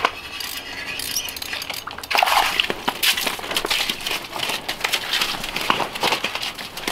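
Clicks, clinks and scrapes on ice and slush as a small bass is hauled up through an ice-fishing hole and lands flopping on the ice, the clatter growing louder about two seconds in.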